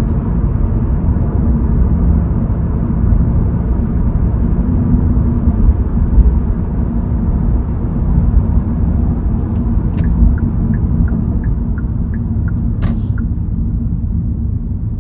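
Steady low road and engine rumble inside the cabin of a moving Kia K3 sedan. Near the end there is a click, then a quick run of about eight faint high ticks, then a short rustle.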